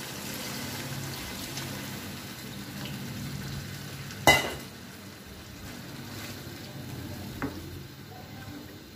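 Beef karahi sizzling in a wok as a litre of water goes into the fried meat and masala, then stirred with a spoon. A sharp knock about four seconds in, with a lighter one later.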